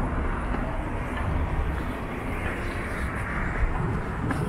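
Street traffic noise: a steady low rumble of vehicles at a pedestrian crossing.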